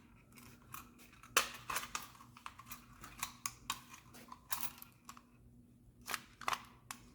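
Scattered small clicks and knocks of parts being handled and fitted together, irregular and fairly faint, over a faint steady hum.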